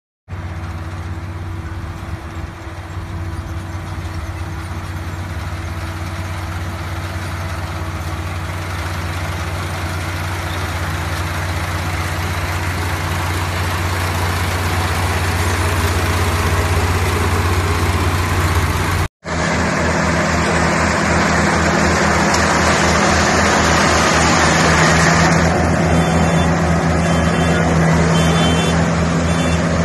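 Small rice combine harvester's diesel engine running steadily under load while it cuts standing paddy. A brief break about two-thirds of the way through leads to a louder, brighter stretch of the same kind of machine running.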